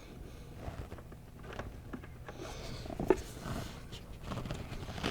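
Scattered light clicks and knocks of hands handling parts, with one sharper knock about three seconds in, over a faint steady low hum.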